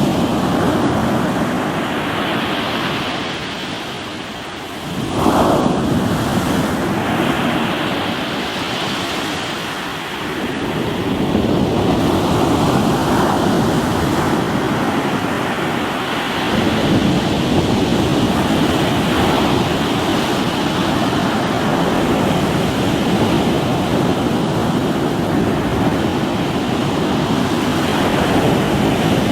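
Sea waves breaking and washing on a rocky shore, a continuous surf that swells and ebbs, with a sharper surge about five seconds in.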